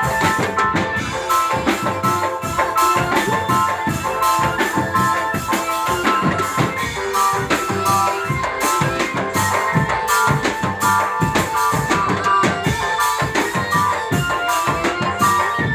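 Dramben drum band playing: fast, steady drumming under a melody line of held notes.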